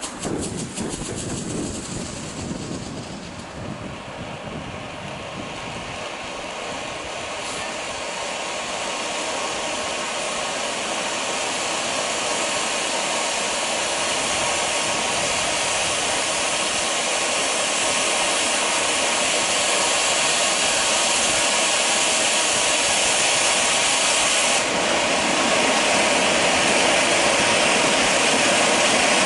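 A ground firework fountain spraying sparks with a steady hiss that grows gradually louder as the fountain builds. It starts with a brief crackle, and the hiss gets brighter about 25 seconds in.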